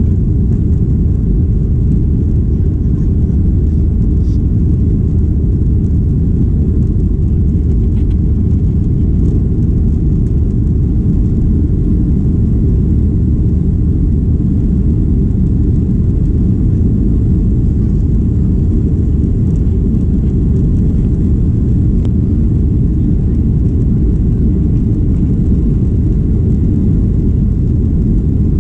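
Steady low rumble inside the passenger cabin of a Boeing 737-800: the noise of its CFM56-7B jet engines and the airflow around the fuselage, unchanging throughout.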